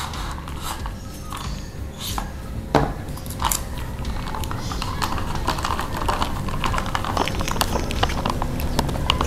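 A plastic drink cup and its wide straw being handled: scattered small clicks and scrapes, with a sharper knock about three seconds in, and sips through the straw near the end. A steady low hum runs underneath.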